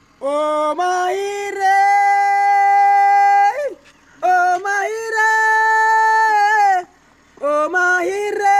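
A high voice singing long, held notes in three drawn-out phrases, with short breaks between them, the last starting near the end.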